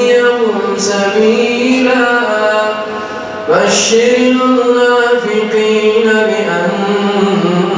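A man chanting the Quran in a slow melodic recitation (tartil), holding long drawn-out notes that glide gently in pitch. The phrase ends about three seconds in and a new one begins at once.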